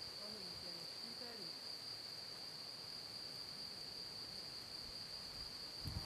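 Steady high-pitched insect trill, unbroken throughout. A low rumble of wind or handling on the microphone comes in right at the end.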